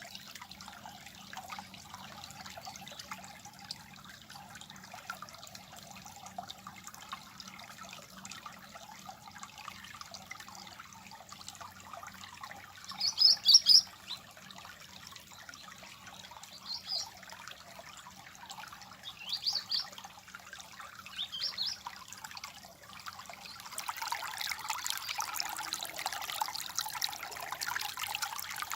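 Water trickling and babbling steadily, with a few short, high bird chirps in the middle, the loudest a little before halfway. Near the end the water grows louder.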